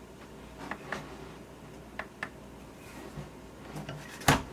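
Steel ratchet wrenches being handled: scattered light clicks and taps in pairs, then one sharper clunk near the end as a ratchet is set down.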